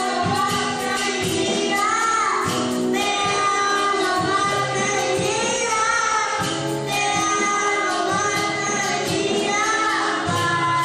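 A young girl singing a song into a microphone, with instrumental accompaniment under her voice.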